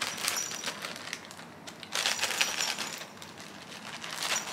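Plastic packaging crinkling and rustling as it is handled, in three spells: at the start, about two seconds in, and near the end.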